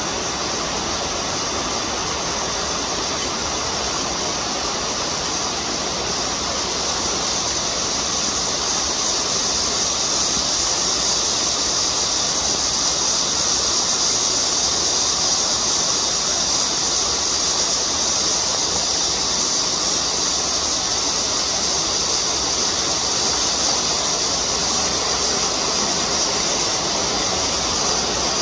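Steady high-pitched buzzing of a cicada chorus, growing a little louder about eight seconds in, over the rush of flowing stream water.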